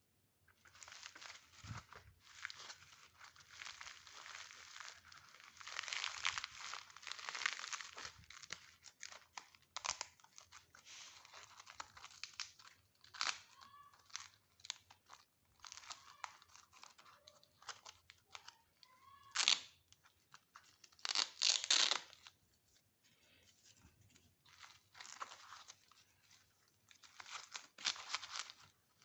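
Velcro hook-and-loop strips being pulled apart in a series of crackling rips of varied length, some long and drawn out, some short and sharp, with the loudest rips about two-thirds of the way through.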